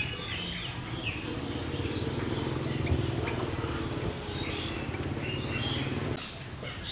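Small birds chirping now and then over a steady low hum, which is the loudest sound and drops away about six seconds in.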